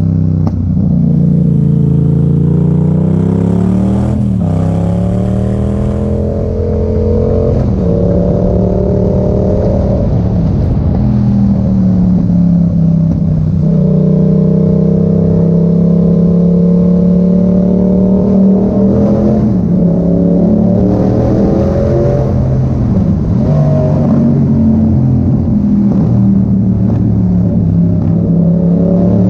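Yamaha MT-07's parallel-twin engine breathing through an Arrow exhaust with the dB killer removed. The pitch climbs and then drops back several times, as at gear changes, with a steadier stretch of running in between.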